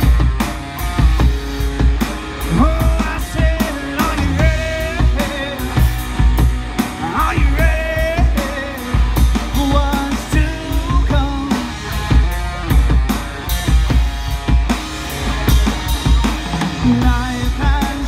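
Live hard-rock band playing through a PA: distorted electric guitars, bass and a drum kit keeping a steady beat, with a singer's voice in places.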